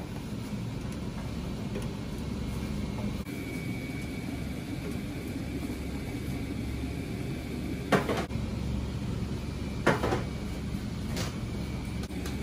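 Steady low rumble of a ramen kitchen's noodle-boiling station, with three sharp metal clanks near the end, about a second and a half apart, as noodles are handled at the aluminium boiling pot.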